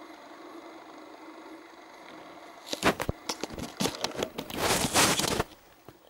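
Steady low hum and hiss, then about three seconds in a run of irregular crackles and crunches close to the microphone that thicken into a dense rustle for about a second before stopping, as of a handheld camera being moved and rubbed among leaves and twigs.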